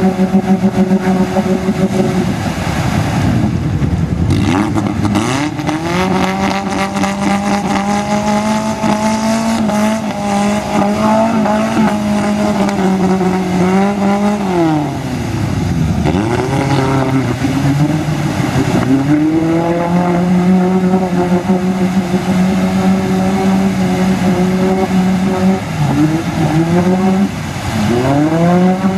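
Suzuki Samurai's engine revving hard and held at high revs as it churns through a deep mud hole, the revs dropping and climbing back a few times, around the middle and again near the end. A noisy wash of tyres throwing mud and water lies under the engine.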